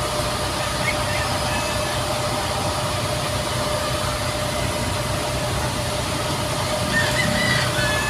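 Steady noise of a running vehicle, with a low hum and a steady high-pitched whine over it.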